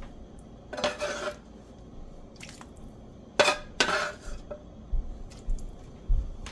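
Clatter of utensils against a pot and dishes: a short scrape about a second in, a sharp clink followed by a longer scrape a little past three seconds, then a few soft low thumps near the end.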